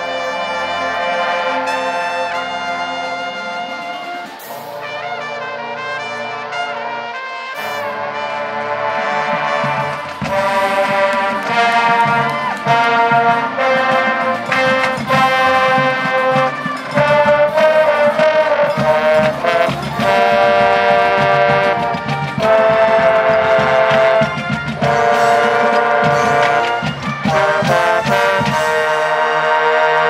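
High school marching band playing its field show: the brass section of trombones and sousaphones holds sustained chords, and the music grows louder with the drumline hitting hard from about ten seconds in.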